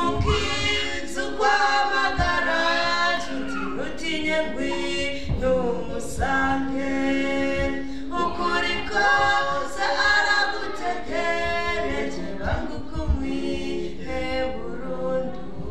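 A small vocal group of two men and a woman singing a gospel song together in harmony through microphones, with long held notes.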